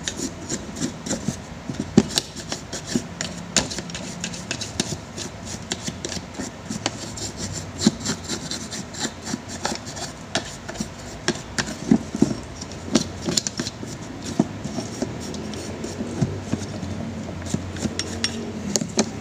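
A small stiff brush scrubbing dirt off an electric fan's motor housing and bearing frame. It makes a rapid, irregular scratching, with small knocks from the plastic and metal parts being turned in the hand.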